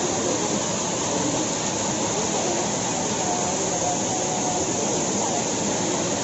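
Waterfall pouring into a rock pool: a steady rush of falling and splashing water.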